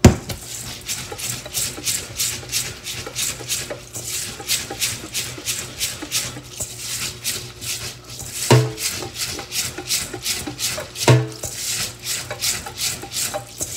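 Wet rice being washed by hand in a stainless steel bowl: the heel of the palm presses and rubs the grains in a steady rhythm of scratchy strokes, about three a second. Twice a louder knock cuts in, about two-thirds of the way through.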